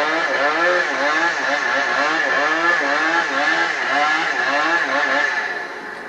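Two-stroke chainsaw running at high speed, its pitch rising and falling about three times a second, then dropping in level and easing off near the end.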